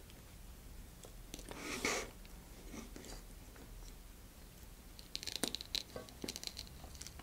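Faint handling of small plastic and wooden electronics-bay parts on a cutting mat: a brief soft rustle about two seconds in, then a quick run of light clicks and crackles around five to six seconds in.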